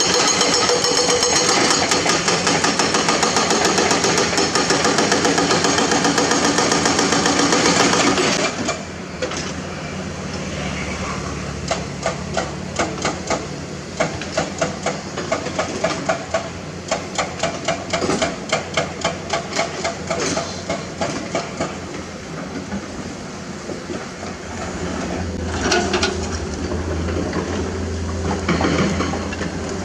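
Excavator-mounted hydraulic breaker hammering hard limestone in a rapid train of impacts, loud for about the first eight seconds, then quieter, with the excavator's diesel engine running underneath.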